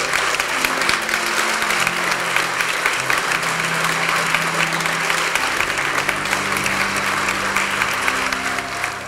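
A large audience applauding steadily, over background music with low held notes; the applause dies away near the end.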